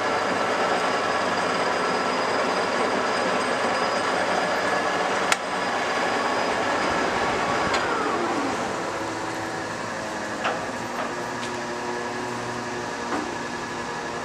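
TOS B40 toolroom lathe's geared headstock running under power with a steady gear whine, and a sharp click about five seconds in. About eight seconds in, the whine falls in pitch as the spindle slows down, and the lathe then runs on more quietly.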